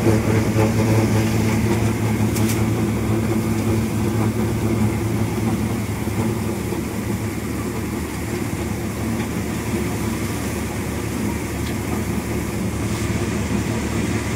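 Tractor-powered mung bean thresher running steadily under load as dried plants are fed in: a constant engine drone mixed with the churn of the threshing drum.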